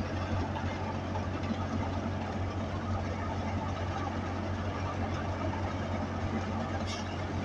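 Tractor-driven wheat thresher running steadily: the tractor's diesel engine drone with the whir and rush of the threshing drum and fan working through wheat. A short click near the end.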